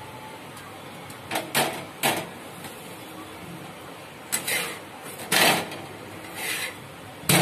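Metal spatula scraping and pressing a rice bhakri against an iron tawa: a string of short, separate scrapes, the longest about two-thirds of the way through, over a steady low hiss.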